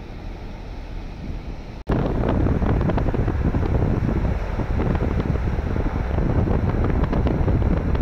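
Wind buffeting the microphone and road rumble from a moving car. It cuts abruptly about two seconds in and comes back much louder.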